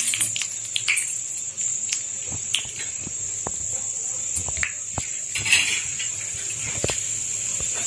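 Roasted split chickpeas (daliya) frying in hot oil in a kadhai: a steady high sizzle with scattered small crackling pops.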